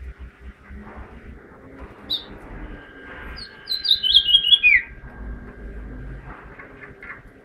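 Caged house finch singing: a single short high note about two seconds in, then a brief, fast warbling phrase of high notes that ends in a downward slur.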